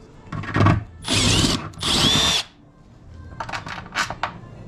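Power drill run in two short bursts, each about half a second, with a whine that bends in pitch as it cuts into the body sheet metal to make the snorkel mounting holes.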